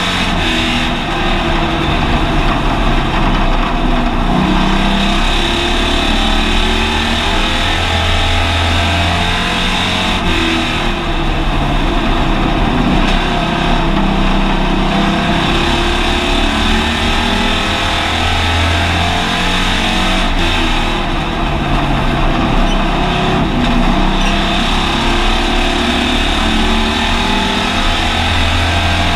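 Hobby stock race car's engine running hard under racing load, heard from inside the car's cabin. The revs climb and drop in a repeating cycle about every ten seconds.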